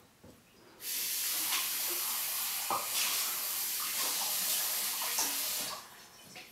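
A steady hiss lasting about five seconds, starting abruptly about a second in and cutting off abruptly near the end, with a few faint clicks over it.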